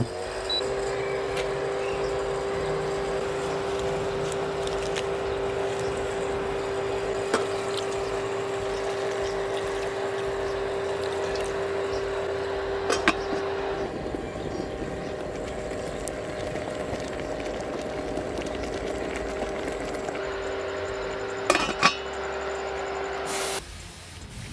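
Kitchen tap water running, with a steady hum and a few clinks of dishes; the running stops abruptly shortly before the end.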